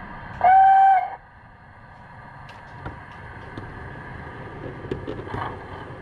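A model steam locomotive's whistle, one short steady blast of under a second about half a second in, as a train departs. A low rumble of a running model train follows, with a few light clicks.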